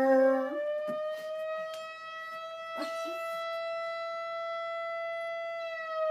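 Four-month-old dog howling: one long howl that rises slowly in pitch and then falls away near the end.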